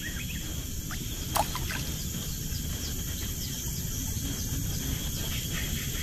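Steady high-pitched drone of insects, several unbroken tones at once, over a low steady rumble, with a single sharp click about a second and a half in.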